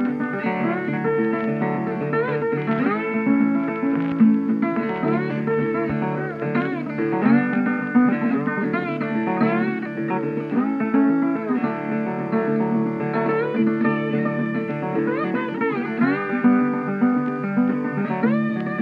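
Background music led by plucked guitar, its notes often sliding and bending in pitch.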